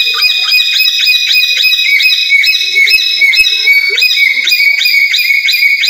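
Black-capped lory giving a rapid run of loud, shrill, repeated calls, about four a second.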